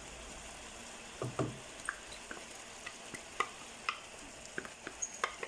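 A utensil stirring cooked onions and chopped parsley in a large frying pan: scattered taps and scrapes against the pan, starting about a second in, over a faint sizzle.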